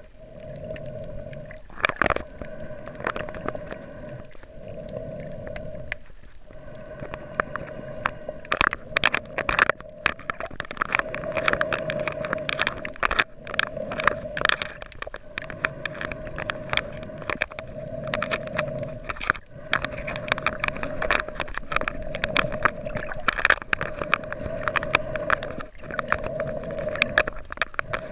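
Underwater sound from a submerged camera while snorkeling: a steady hum under a dense crackle of sharp clicks, which grows louder about a third of the way in.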